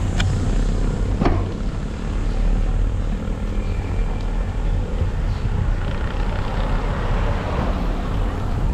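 Wind buffeting the camera microphone with road rumble during a bicycle ride, a steady low rumble with a couple of sharp clicks near the start.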